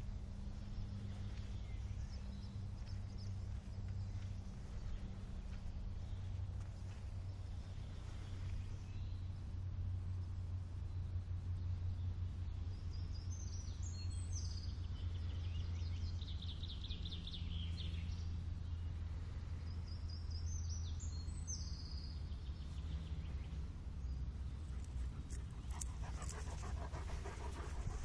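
Gordon setter panting close by near the end, over a steady low rumble, with a bird calling twice midway.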